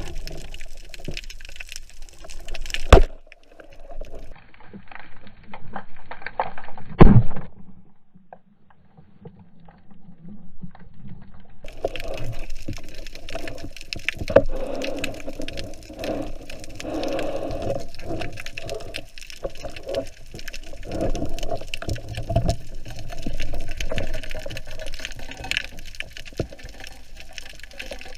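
Water sloshing and bubbling as heard by a camera in the sea, broken by a sharp knock about three seconds in and a louder thump about seven seconds in. The sound drops away for a few seconds, then cuts back in abruptly.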